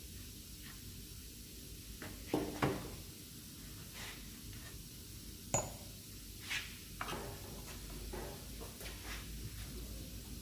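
Hand tools and small steel parts clinking and tapping against a car's front hub and brake caliper during brake work, in a string of separate sharp clinks. The loudest come about two seconds in, a second time just after, and again around the middle.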